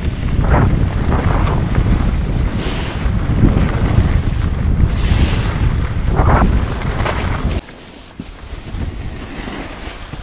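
Wind buffeting the microphone of a camera moving fast downhill, a heavy rumble mixed with the hiss of sliding over snow. The rumble drops sharply about seven and a half seconds in.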